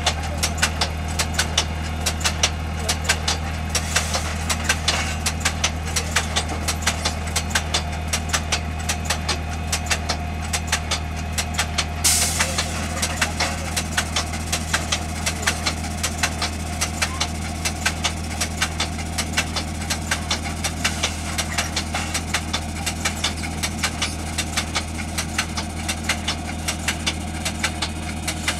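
Ferrari Futura Twin self-propelled automated transplanter running at a steady low engine hum, with a fast, even clicking from its machinery a few times a second and one louder clank about twelve seconds in.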